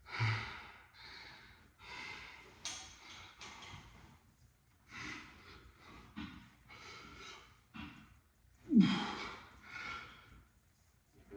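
A man breathing hard from exertion mid-exercise: a steady run of short, forceful breaths in and out through nose and mouth, with a louder falling grunt about nine seconds in.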